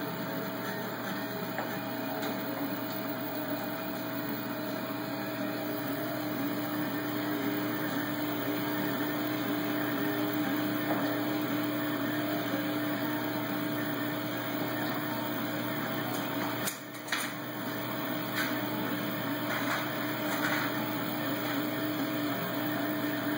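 Rostock-style delta 3D printer running a fast print: its stepper motors give a steady mechanical whine and hum as the head moves. The sound briefly drops about seventeen seconds in.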